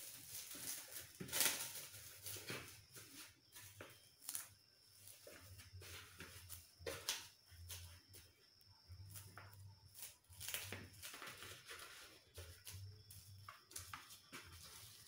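Plastic cling film crinkling and rustling as hands press and smooth it over dough in a plastic bowl, heard as faint scattered crackles and soft taps.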